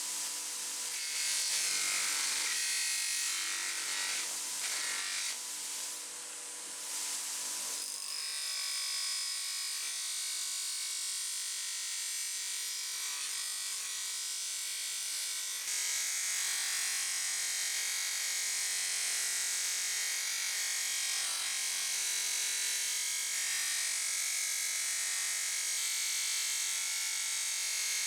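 Abrasive rubbing on metal for the first eight seconds or so, then a small electric power tool running steadily, a little louder from about halfway through.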